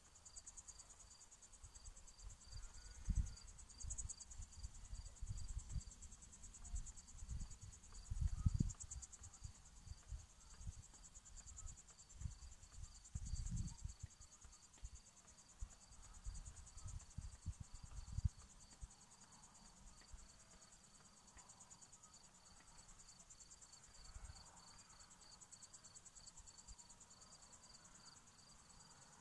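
Crickets chirping at night: a steady high trill, with a second, lower chirp pulsing evenly several times a second. Irregular low thumps and rumbles on the microphone come and go through the first half or so.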